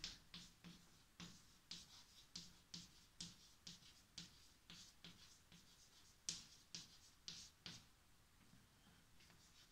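Chalk writing on a blackboard: faint short strokes of the chalk against the board, about two or three a second in an uneven rhythm, as a word is written out letter by letter.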